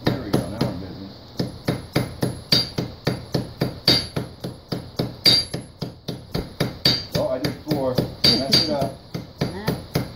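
Hammer blows on hot metal over an anvil in a steady rhythm, about three a second, each with a short metallic ring, as a leaf pendant is forged.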